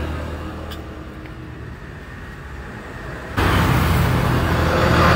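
Road traffic passing close by: motor vehicle engines and tyre noise. About three and a half seconds in, the sound turns suddenly much louder as another vehicle goes past.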